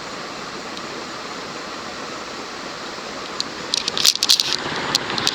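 Encon/Crompton Greaves Princess 36-inch ceiling fan running fast, its blades making a steady rush of air. The fan is on a capacitor wall control's medium-low setting, which drives it at nearly high speed. From a little over three seconds in to near the end, a short cluster of sharp clicks and rattles stands out above the rush.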